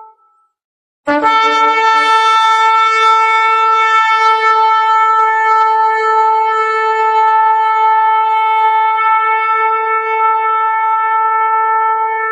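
Shofar blown in one long, steady blast starting about a second in. It opens with a brief lower note, then settles and holds a single pitch rich in overtones.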